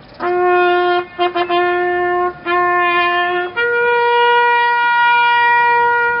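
Solo trumpet playing a slow ceremonial salute call. A low note is held, broken by a few quick short notes about a second in, then sounded twice more before rising to a higher note held for about two and a half seconds.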